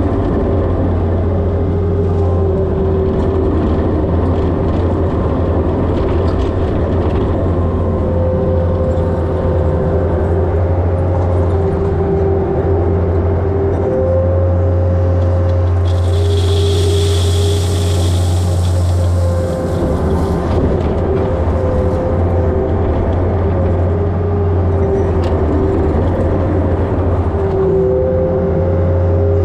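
Diesel engine of a Takeuchi compact earthmoving machine running steadily under load while backfilling, with a whine that shifts in pitch. A higher hiss comes in for a few seconds a little past halfway.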